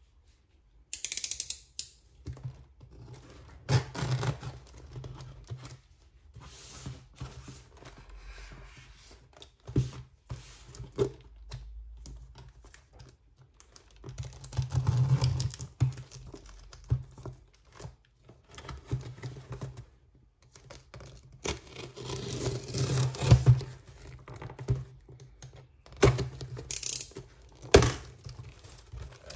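Unboxing sounds from a cardboard box wrapped in clear plastic: the plastic crinkling under the hands, a utility knife slitting the wrapping and tape, and the cardboard flaps scraping open. Irregular sharp clicks and taps come between longer stretches of rustling.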